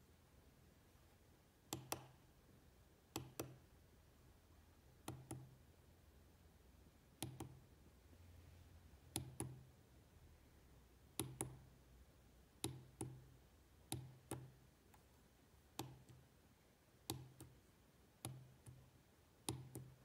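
Tactile push button on a breadboard clicking as a finger presses and releases it: a double click each time, press then release, about a dozen times at one- to two-second intervals.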